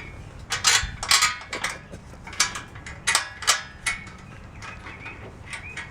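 Bolts and sheet-metal grill parts clinking and knocking as they are handled and fitted together, about nine sharp metallic clinks in the first four seconds, then quieter handling.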